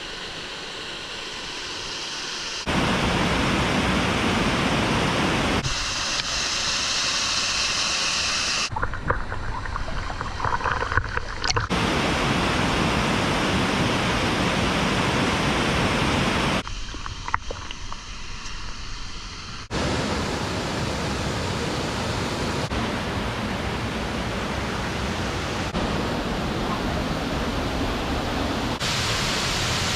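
Steady rushing of a waterfall, its loudness and tone jumping abruptly every few seconds, with a few faint clicks in the quieter stretches.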